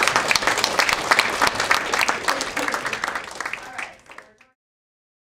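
Audience applauding, the clapping thinning out and cutting off about four and a half seconds in.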